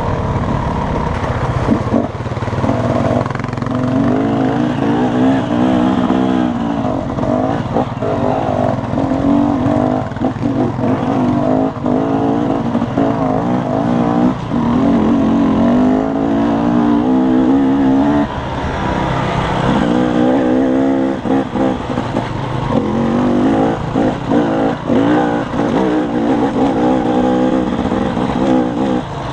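Dirt bike engine heard from the rider's own bike, revving up and down as the throttle opens and shuts, dropping away briefly every few seconds. Occasional knocks from the bike riding over rough trail.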